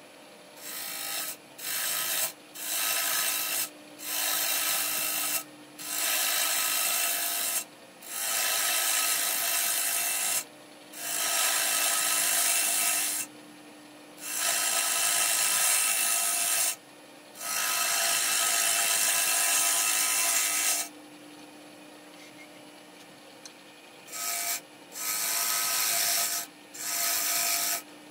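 Turning tool cutting a small black walnut bowl spinning on a Powermatic lathe: repeated hissing cuts of one to four seconds each, separated by short gaps in which the lathe's steady motor hum is left, with a longer pause about three-quarters through followed by three shorter cuts. The audio is sped up.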